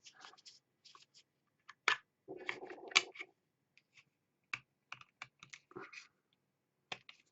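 Plastic clicks and short scrapes as a Commodore MPS 801 printer ribbon cartridge is handled and pried open at its snap-fit pins. The sharpest clicks come a little under two seconds in and at about three seconds, with a short scrape just before the second.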